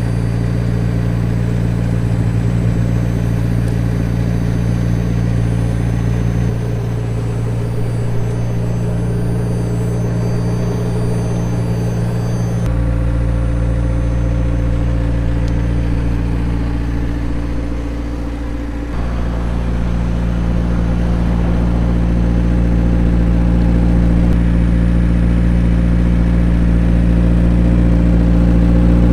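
McLaren 765LT's twin-turbo V8 idling steadily with a deep, even hum. The tone shifts slightly a few times.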